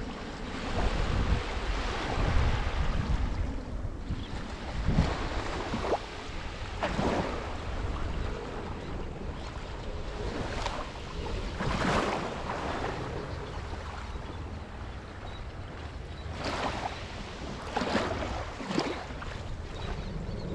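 Small Gulf of Mexico waves breaking and washing up the beach, the surf swelling and fading every few seconds, with wind buffeting the microphone as a low rumble.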